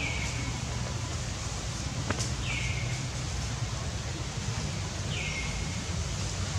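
A bird calling over and over, each call a short note that slides down and levels off, about every two and a half seconds, over steady outdoor background noise. A single sharp click a little past two seconds in.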